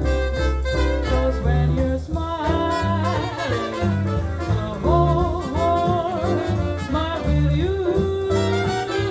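Swing-style jazz record with saxophone and brass, played from vinyl through home stereo speakers and heard in the room.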